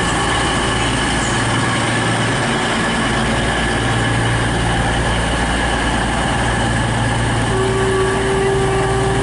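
Class 222 Meridian diesel multiple unit's underfloor diesel engines running steadily at a station platform, a continuous low hum. Near the end a single steady tone sounds over it.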